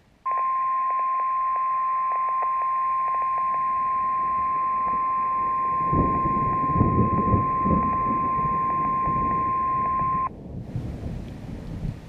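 NOAA Weather Radio warning alarm tone: one steady, piercing 1050 Hz tone through a radio speaker, lasting about ten seconds and then cutting off. It signals that a warning broadcast, here a severe thunderstorm warning, is about to follow. A low rumble sits beneath the tone from about six to eight seconds in.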